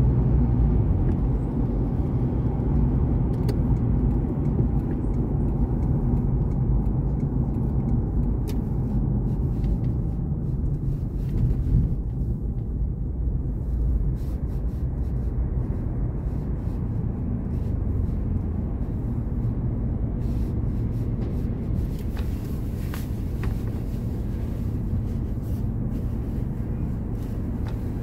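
Steady low rumble of a moving car's engine and tyres on the road, heard from inside the car's cabin, with a few faint ticks.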